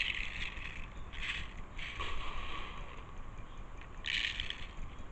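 Plastic airsoft BBs rattling and clicking as they are pushed by fingerfuls into the gun's loader, in about four short bursts.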